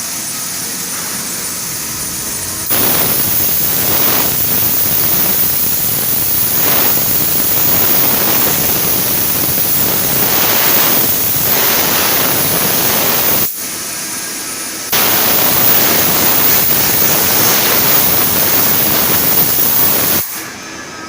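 Loud, steady spraying hiss at a CNC milling machine. It switches on abruptly about three seconds in, stops for a moment after about thirteen seconds, comes back, and cuts off near the end.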